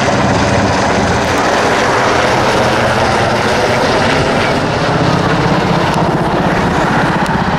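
Yellow RAF Westland Sea King search-and-rescue helicopter flying overhead, its five-bladed main rotor beating in a rapid, steady chop over the running turbine engines.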